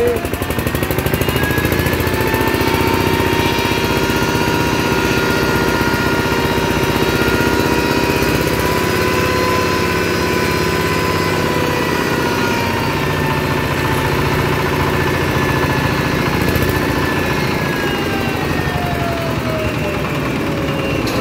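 Single-cylinder horizontal diesel engine running steadily while belt-driving an FFC disk flour mill, with a whine from the spinning mill over the engine's beat. Over the last few seconds the whine falls in pitch as the engine slows.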